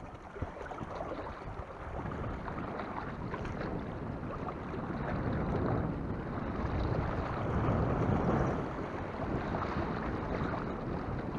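Wind rumbling on the microphone over the wash of the sea, a steady noise that swells and eases.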